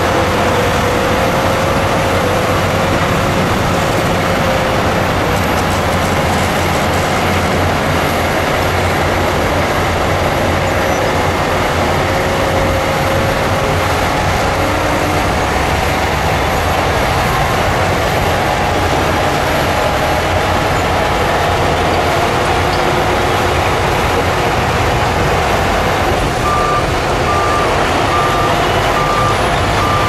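Heavy diesel construction machinery running steadily under load. Near the end a reversing alarm beeps, about one and a half beeps a second.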